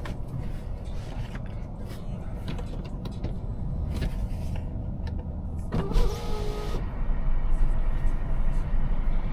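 Twin-charged Mercedes engine running with a steady low rumble, with a brief whine about six seconds in, after which the engine gets louder.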